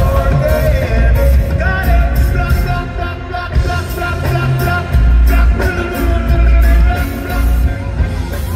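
Live reggae band playing: a male lead vocal sings held, sliding melodic lines over a heavy, pulsing bass line and a drum kit with cymbals.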